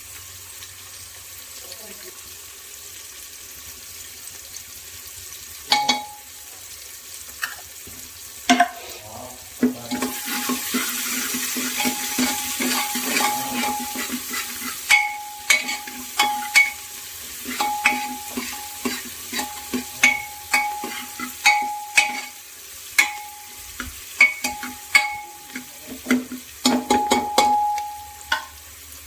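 A metal spoon stirring in a metal cooking pot, knocking and scraping against it with short ringing clinks, over food sizzling in hot oil. A couple of single knocks come first; the sizzle starts about ten seconds in, and from then on the clinks come about once or twice a second.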